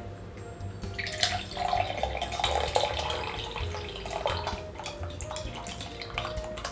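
Liquid pouring from a glass bottle into a tall drinking glass, a splashing stream that starts about a second in and fades out after a few seconds.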